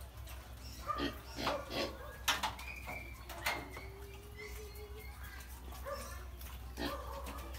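Piglets squealing and grunting in short calls, with a few sharp knocks and one longer held call about halfway through.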